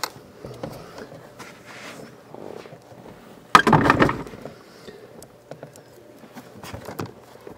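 Hand-handling noises as a blower motor is held up into its plastic housing and a mounting bolt is started: faint clicks and rustles, with one sudden louder rustling burst about three and a half seconds in that dies away in under a second.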